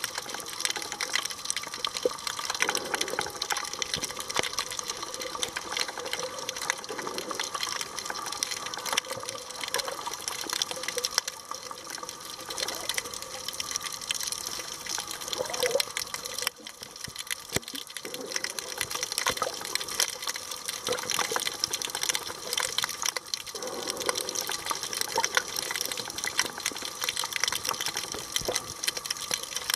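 Underwater sound recorded by a camera below the surface: a steady wash of water noise with many small scattered clicks and crackles throughout.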